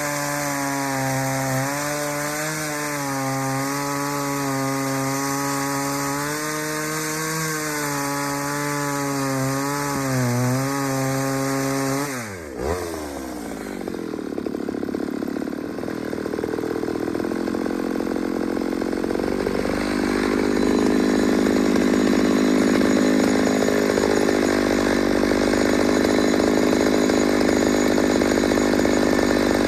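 Ported Pioneer chainsaw running at high revs through a cut, its pitch wavering under load. About 12 seconds in the revs fall sharply. The saw then runs on at a lower, uneven speed and gets louder again from about 20 seconds.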